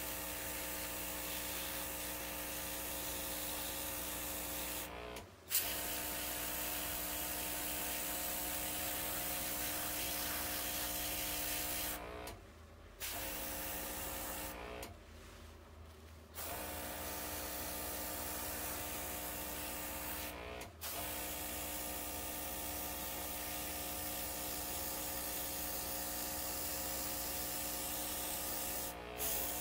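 OPAWZ airbrush spraying temp-ink with its small compressor running: a steady hiss over an electric motor hum. Both stop briefly several times, the longest break about a second and a half, as the spray is paused and started again.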